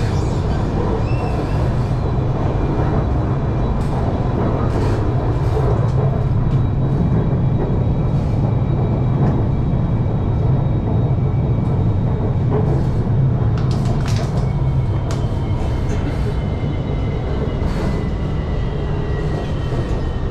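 Hanoi Metro Line 2A electric train running, a steady low rumble with a faint high whine and occasional clicks.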